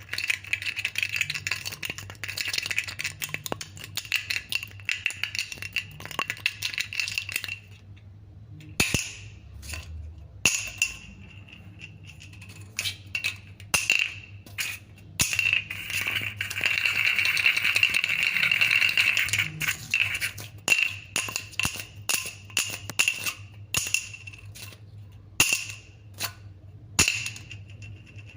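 Plastic bottle cap flipped, tossed and rattled on a hard surface: fast runs of clicking and rattling for the first several seconds and again in the middle, with single sharp clicks in between.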